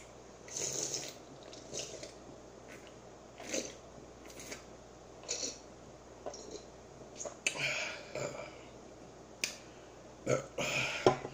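A person drinking soda from a can in gulps, with a short swallowing sound roughly every second, and a louder vocal sound near the end as the can comes down.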